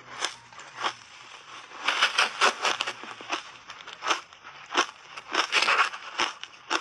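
Shaved ice being chewed with the mouth close to a clip-on microphone: a run of sharp, irregular crunches, coming thickest in a flurry about two seconds in and another around five and a half seconds.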